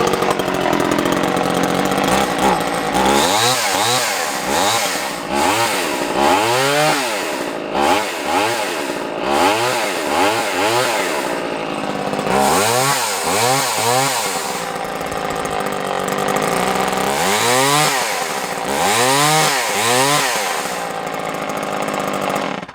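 Vintage Homelite 150 Automatic two-stroke chainsaw engine running, its throttle blipped again and again in quick bursts that rise and fall in pitch, settling back to idle between groups of revs, then shut off abruptly at the end. The saw runs well and has started easily.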